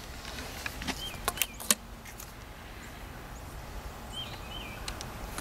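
A few sharp clicks and light knocks in the first two seconds from a folding shotgun/rifle being handled at a wooden table, over a quiet outdoor background. A small bird chirps twice, briefly.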